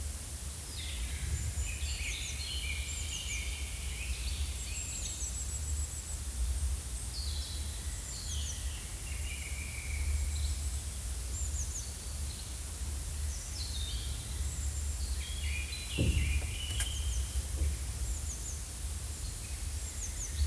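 Forest ambience with several small birds chirping and singing in short, mostly falling phrases over a steady low rumble, with a brief dull thud about sixteen seconds in.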